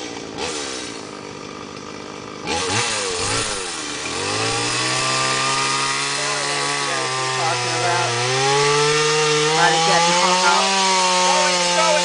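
Chainsaw blipping near idle, revving up about two seconds in, then running at full throttle under load as it cuts into a tree trunk, its pitch climbing slowly as the cut goes on.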